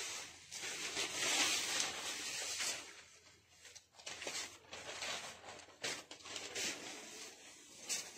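Stiff handloom Katan Benarasi silk saree rustling and swishing as it is unfolded and shaken out by hand. The rustle is loudest in the first three seconds, then comes in shorter swishes with a few sharp crackles.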